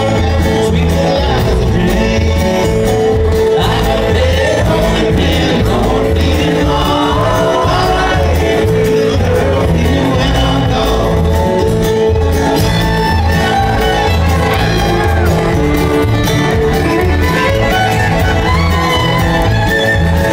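Acoustic bluegrass band playing live: fiddle, banjo and acoustic guitars over an upright bass keeping a steady, even beat.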